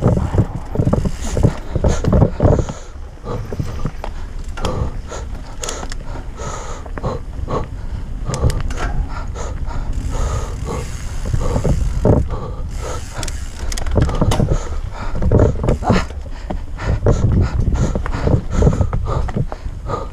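Mountain bike riding down a dirt singletrack: the chain and frame clatter over bumps and the tyres rumble on the dirt, with wind buffeting the camera microphone. The clatter comes in repeated bursts, a little calmer in a stretch a few seconds in.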